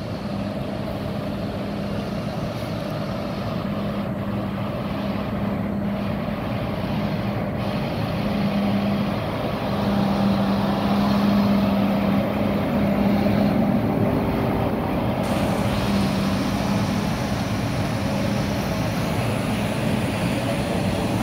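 Large diesel farm tractors in a slow convoy, engines running with a steady low hum. It grows louder about ten seconds in as a tractor approaches and passes close.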